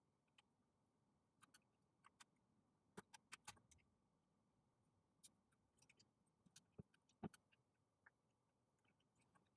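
Near silence broken by faint scattered clicks and taps, a cluster about three seconds in and another around seven seconds: small plastic prying tools working at a cracked iPad touchscreen glass.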